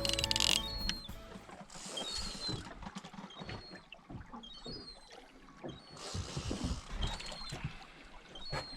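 Water washing and lapping against a small boat's hull, with scattered clicks and short high squeaks repeating about once a second. Background music cuts out in the first moment.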